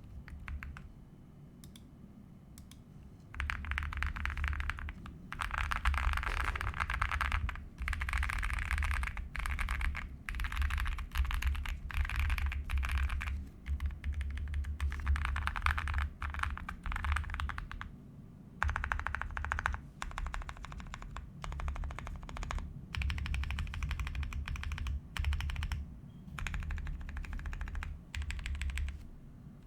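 Tiger80 mechanical keyboard with lubed Boba U4T tactile switches and PBT keycaps on a polycarbonate plate, tape-modded and foam-filled, being typed on quickly. The keystrokes come in dense bursts of a second or two with short pauses between, starting about three seconds in.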